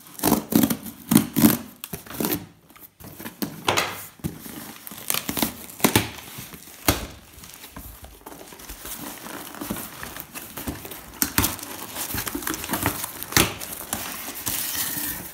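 A knife cutting through the packing tape of a cardboard box in a quick run of sharp strokes over the first few seconds, then cardboard flaps being pulled open and crumpled paper packing rustling and crinkling.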